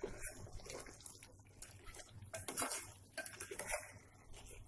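A spoon scraping and knocking irregularly against a heavy-bottomed metal pot while thick chicken masala with cashew paste is stirred.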